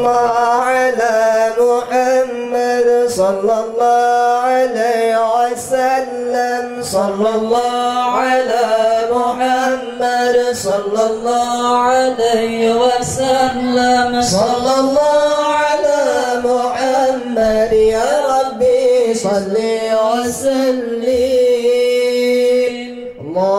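A man chanting an Islamic recitation into a microphone: one melodic line with long held notes and ornamented turns, pausing briefly near the end.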